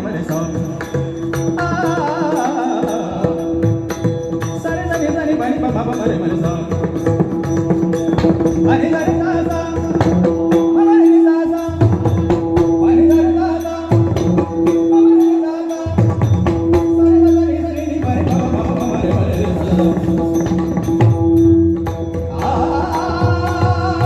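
Devotional kirtan music: a pakhawaj drum plays a busy stroke pattern under a singer's wavering melodic line, over a steady held drone note.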